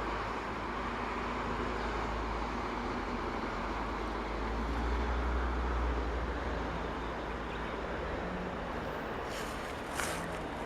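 Passenger train passing on the line, a steady low rumble and rail noise that swells about halfway through and eases off again, with a few sharp clicks near the end.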